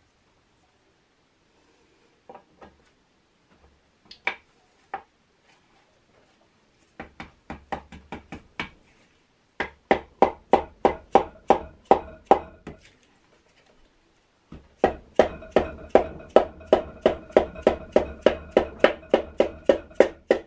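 Forged piston being tapped down through a ring compressor into the Subaru EJ25 cylinder bore with the end of a red handle. A few single taps come first, then long runs of quick taps, about four a second, each with a short ring, with a brief pause partway through.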